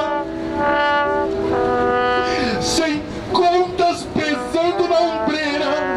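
Live band's saxophones and brass playing held chords that change every second or so, with some wavering notes near the middle.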